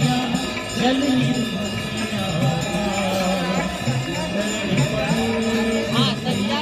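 Hindu aarti hymn sung to music, with bells ringing steadily underneath.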